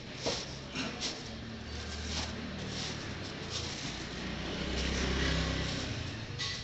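Plastic sheeting crinkling and rustling in short bursts as hands tuck and smooth it down inside a metal box. A low rumble builds underneath and is loudest about five seconds in.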